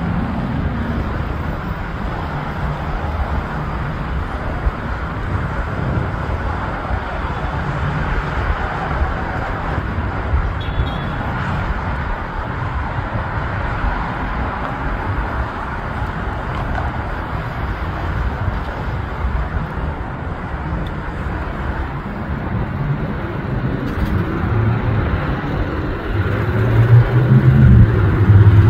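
Steady outdoor rumble of airport aircraft engines mixed with traffic noise, swelling louder near the end as an approaching aircraft comes in low.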